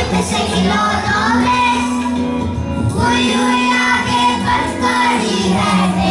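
Music: the opening of a Hindi children's song, a melody over long held low notes.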